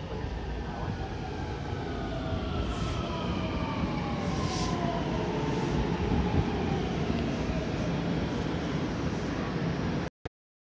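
JR West 223 series 2000 electric train braking as it pulls into a platform: its traction motors' whine falls steadily in pitch over the low rumble of wheels on rail, with two short hisses. The sound cuts off suddenly near the end.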